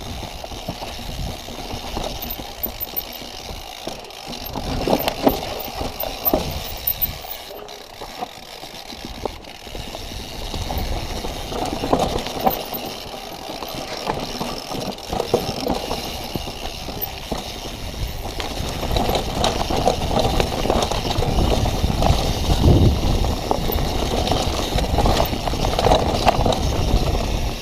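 Mountain bike rolling down a rough, rocky trail: tyres on rock and dirt and the bike rattling and knocking over bumps, with a steady rumble underneath that grows louder in the second half.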